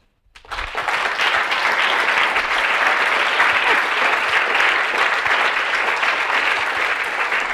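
Audience applauding, starting about half a second in and quickly building to a steady, full round of clapping.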